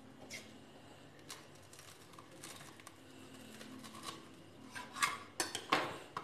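A knife cutting through crisp toasted sandwich bread on a steel plate: scattered crunches of the toast crust with light clicks of the blade against the plate, louder near the end.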